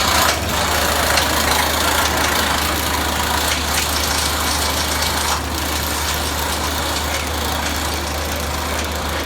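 Amusement ride machinery running: a steady low mechanical hum under a broad hiss that eases a little about five seconds in.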